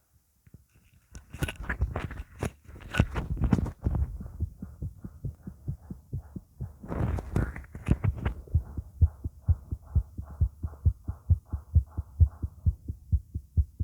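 A person's heartbeat picked up close against the body: regular low thumps, several a second, with two bursts of rustling noise, near the start and about halfway through.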